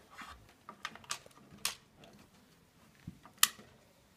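Sharp plastic clicks and knocks of a UK three-pin mains plug being pulled from one wall socket and pushed into the next, with the cable and socket faces handled. The loudest click comes a little over three seconds in, as the plug seats.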